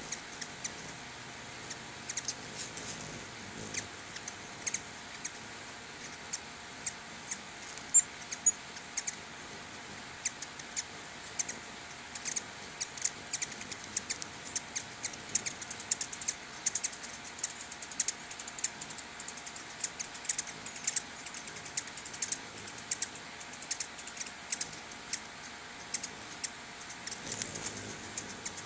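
Ruby-throated hummingbirds giving high, sharp chip calls: many short ticks in irregular runs, often several a second.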